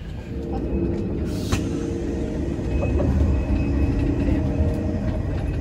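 Train running with a steady low rumble, and a short hiss about a second and a half in.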